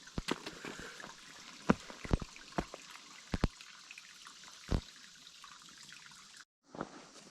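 A hiker's footsteps on a trail: about half a dozen separate footfalls, unevenly spaced, over a steady hiss. The sound drops out suddenly for a moment near the end.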